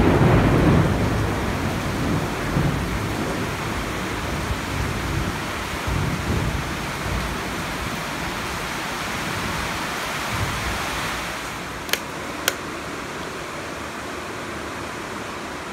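Heavy tropical rain pouring steadily, with a rumble of thunder at the start that fades over the first few seconds. Two sharp clicks about half a second apart come near the end, as the rain eases slightly.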